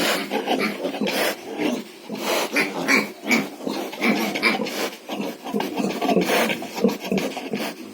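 Pigs grunting and squealing, a continuous jumble of short, overlapping calls.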